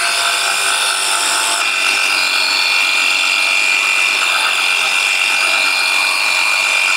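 Xenon HPW2160 cordless pressure washer running steadily while spraying soap foam through its foam bottle: an electric motor-and-pump whine with spray hiss. About a second and a half in, the hiss drops and a steadier high whine comes to the fore.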